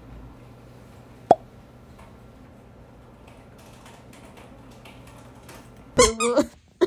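Quiet room tone with faint scattered clicks, broken about a second in by a single sharp pop with a short falling tone. Near the end a woman makes a short voiced sound, twice.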